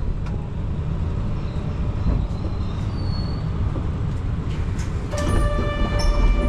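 Kyoto subway train running, heard from inside the car: a steady low rumble with a few sharp clicks. About five seconds in, a steady high-pitched whine sets in and holds.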